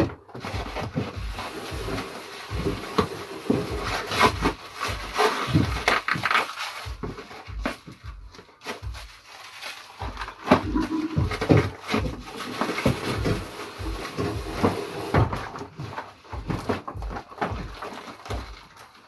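Irregular knocks, scrapes and rustling as packaged items are handled and pushed into place in a cardboard packing box.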